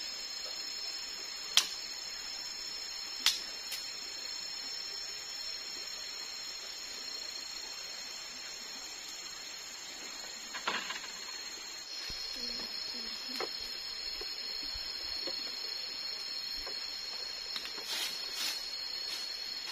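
Two sharp knocks of split firewood being stacked on a bamboo railing, about one and a half and three seconds in, with a softer clatter near the middle. Under them runs a steady high drone of tropical forest insects.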